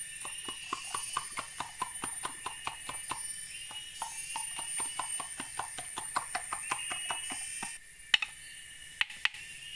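A machete chopping at wood or bamboo in fast, even strokes, about four or five a second. Near the end come three separate, louder strikes. Forest insects shrill steadily behind.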